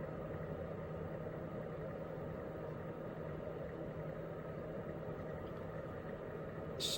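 A steady low mechanical hum, even in level throughout, with a brief rustle near the end.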